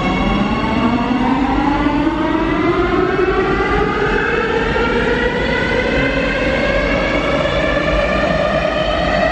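Siemens Inspiro metro train's traction motors whining as it pulls away, a set of tones rising steadily in pitch as the train accelerates, over the rumble of the wheels.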